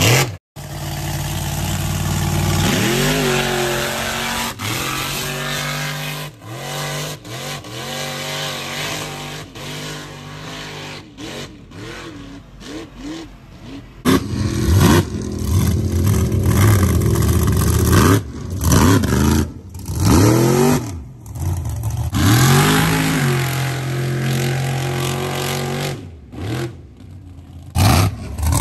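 Mega truck engine revving hard over and over, the pitch climbing and falling with each rev. About halfway through the sound turns louder and choppier, with short sharp revs and brief drops between them.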